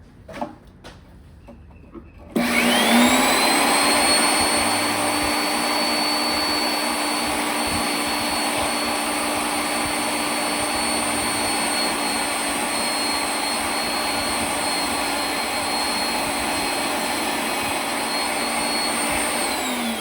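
An electric workshop machine switches on a couple of seconds in, its motor whine rising quickly to a steady high pitch over a loud hiss. It runs evenly, then switches off near the end and winds down.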